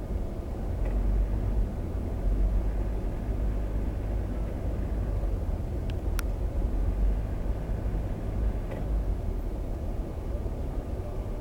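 Steady low rumble of street traffic and vehicle engines, with a single sharp click about six seconds in.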